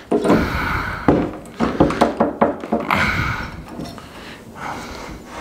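A hammer driving nails into cedar fence-picket boards: a quick run of wooden knocks, roughly two to three a second, through the first three and a half seconds, then quieter.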